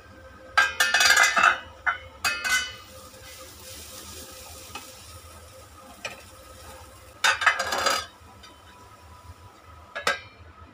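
A wooden spatula stirs grated beetroot sabzi in a non-stick kadai, scraping and clattering against the pan in three loud spells, while the vegetables sizzle steadily in between. A stainless-steel lid clinks down onto the pan near the end.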